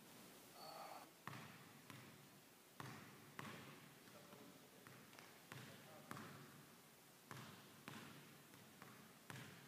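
Basketball dribbled hard on a hardwood gym floor, about one and a half bounces a second, each bounce echoing in the large gym. A brief squeak sounds near the start.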